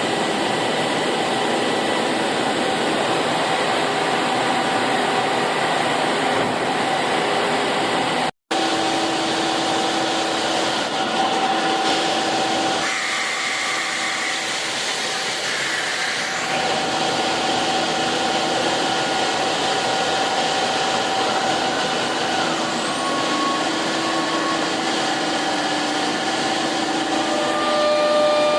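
SCM Accord 20 CNC router running: a steady mechanical whir with a constant whine from the electrospindle. The whine shifts in pitch a few times, and the sound drops out abruptly for an instant about eight seconds in.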